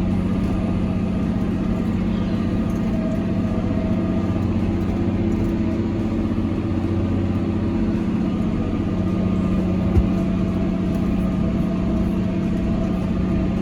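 Tractor engine running steadily under load while pulling a baler, a constant low hum. There is one short knock about ten seconds in.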